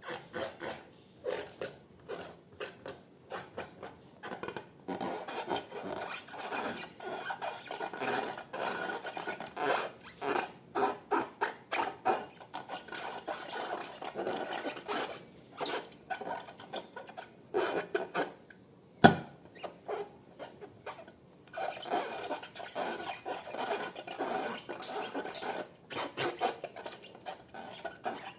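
Slime being stirred and worked by hand, a run of short, irregular rubbing and scraping strokes, with one sharp click about two-thirds of the way through.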